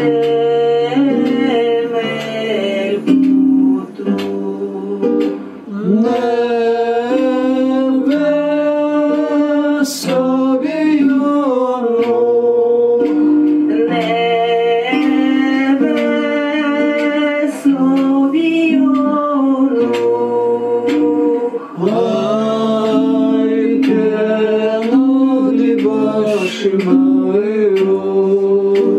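A song with singing over guitar accompaniment, played back as music for the exercise, with long held sung notes.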